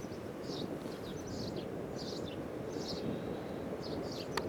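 A bird chirping repeatedly on short high notes, about twice a second, over a steady low rumble; a single click near the end.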